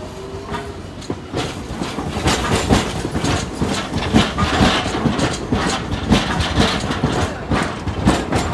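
Low-floor articulated tram passing close by at low speed, its steel wheels clattering over the pointwork and crossings in a quick, uneven run of sharp knocks. The clatter starts about a second in and grows louder as the car sections roll past.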